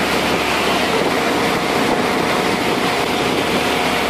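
Fishing boat's engine and deck machinery running steadily under a dense, even rushing hiss, with no separate knocks.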